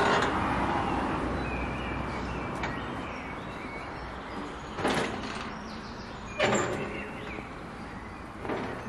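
A metal-bar park gate is handled as someone walks through, giving three sharp metallic knocks about five, six and a half and eight and a half seconds in. Small birds chirp briefly in the background.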